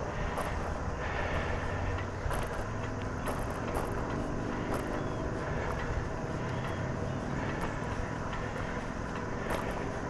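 Wind buffeting the camera microphone over the steady hiss of road-bike tyres rolling on a concrete trestle deck, with faint ticks now and then as the wheels cross the deck's joints.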